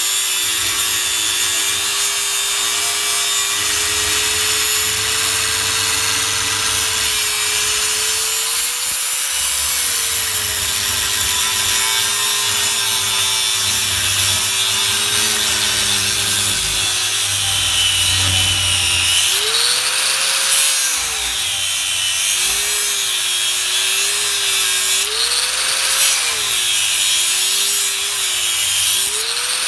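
Electric power tool running continuously as it works scrap steel. The hiss of metal being worked is steady, and the motor's whine sags and recovers several times in the second half as the load comes on and off.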